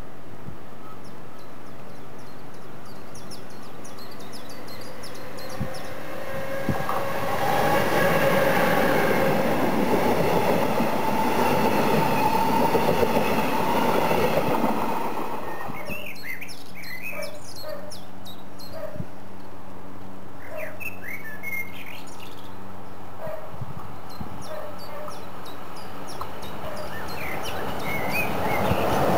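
CFL class 2200 double-deck electric multiple unit passing close by, its noise swelling and dying away over about eight seconds, with birds chirping before and after it. Near the end an SNCB class 13 electric locomotive with a freight train draws near and the noise rises again.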